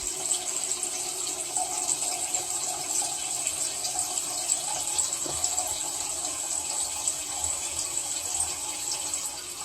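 Toilet cistern refilling after a flush: water hissing steadily through the fill valve, easing off slightly near the end as the tank approaches its full level.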